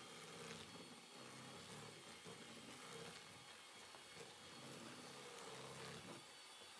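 Electric hand mixer running faintly and steadily, its beaters working butter, sugar and egg into cookie dough in a mixing bowl.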